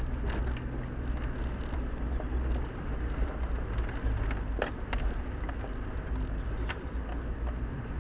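Nissan Terrano running at low revs, heard from inside the cabin on a rough off-road track, as a steady deep rumble. Scattered sharp clicks and knocks come from the vehicle jolting over the bumps.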